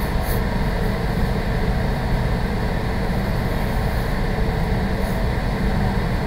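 Steady low background rumble with no distinct events, like an air conditioner or fan running.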